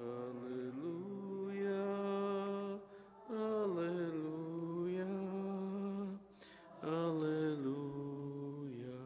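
A single man's voice chanting the Gospel acclamation unaccompanied, in three long held phrases that step up and down in pitch.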